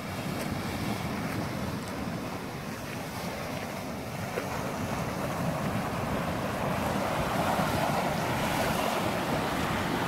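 Wind blowing across the phone's microphone: a steady rushing and buffeting noise that grows slightly louder.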